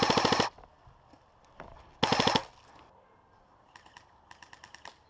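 Airsoft electric gun firing two short full-auto bursts about two seconds apart, each a rapid rattle of about half a second. Near the end, fainter rapid bursts from airsoft guns farther off.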